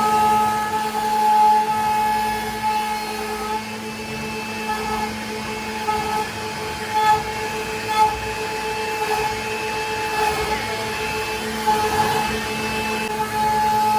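CNC router running while carving wood: a steady motor whine from the spindle over cutting noise, with a few brief louder spikes about seven and eight seconds in.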